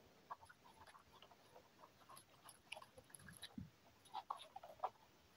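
Faint, wet chewing and smacking of a mouthful of rice and curry being eaten by hand: many small, irregular clicks and smacks, a little busier near the end.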